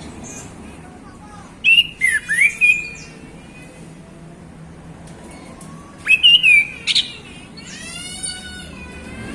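Male chestnut-capped thrush singing in two loud bursts of sharp, quickly changing whistled notes, about two seconds in and again about six seconds in. A softer buzzy note follows near the end.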